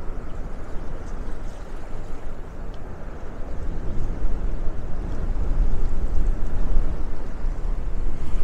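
Low, rumbling outdoor noise with no clear pitch, fluctuating and growing louder about halfway through.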